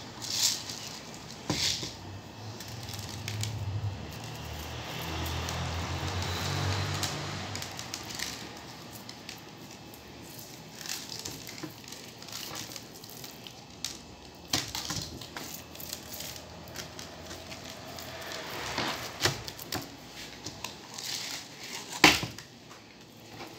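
Coarse rock salt being sprinkled and rubbed by hand onto a raw slab of meat on a cutting board: scattered light clicks and crackles of grains and handling, with one sharp knock near the end. A low rumble swells and fades in the first third.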